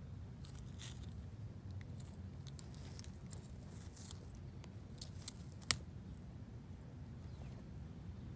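Sulcata tortoise biting and chewing, heard as scattered short crunches and clicks of its beak on food, with one sharp snap a little over halfway through. A steady low hum runs underneath.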